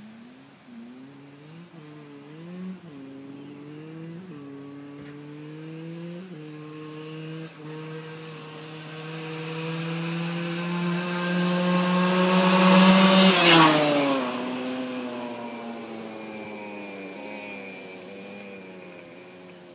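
Dirt bike engine accelerating hard, shifting up through several gears as it approaches. It passes close by about 13 seconds in, where it is loudest and its pitch drops sharply. Then it fades into the distance.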